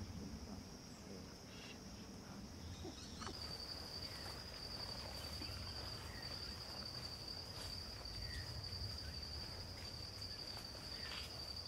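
Insects keeping up a steady, high-pitched drone over a low background rumble; the drone shifts slightly lower about three seconds in.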